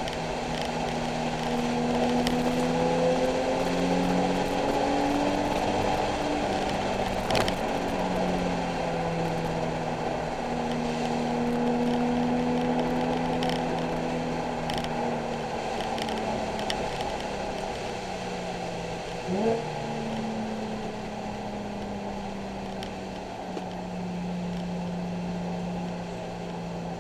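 Nissan 370Z's 3.7-litre V6 running on track, its engine note drifting slowly up and down, over a steady hiss, with a couple of short clicks.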